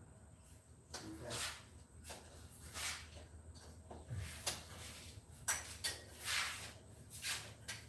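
Hand work under a car during an oil change: a series of short scraping, rustling strokes, about one a second, with light clatter of tools or parts.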